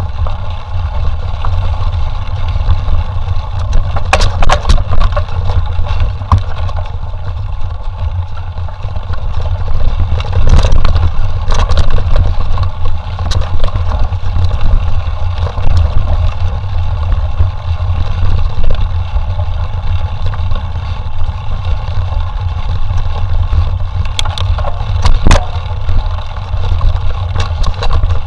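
Mountain bike ride heard on a body- or bike-mounted camera: wind buffeting the microphone as a steady low rumble, with the bike's clicks and rattles over rough trail a few times.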